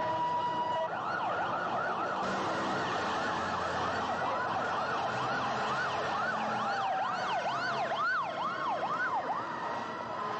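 Police car sirens in a fast yelp, several overlapping, with pitch sweeps about three a second starting about a second in and growing stronger near the end, over street traffic.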